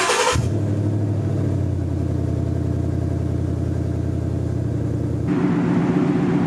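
Muffler-deleted 2016 Ford Mustang GT's 5.0 Coyote V8, just started, idling with a steady deep rumble after a short burst of noise at the very start. It is throaty but not super loud, since the resonators are still in place. The tone shifts about five seconds in.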